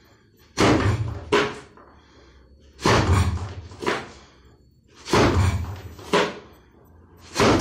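Wooden makiwara post struck by jab punches, four heavy thuds about every two seconds. Each hit rings on briefly and is followed by a weaker second knock under a second later, the last hit landing near the end.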